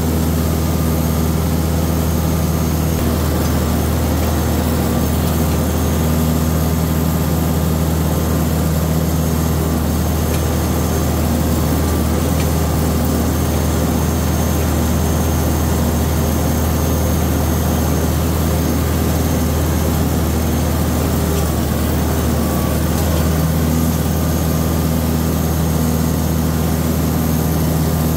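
Tractor engine running at a steady speed, a low, unchanging drone.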